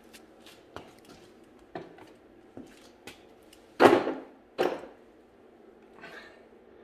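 A removed Suzuki GS500E motorcycle engine being manoeuvred onto a wooden plank on a bathroom scale: a few light clicks and knocks, then two heavy wooden thumps under a second apart near the middle as the engine is set down on the board.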